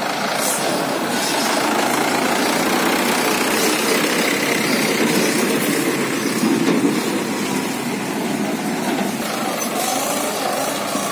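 Mahindra 585 DI tractor's four-cylinder diesel engine running as it drives by pulling a loaded trolley, with the trolley body rattling as it passes close. The sound is loudest about two-thirds of the way through.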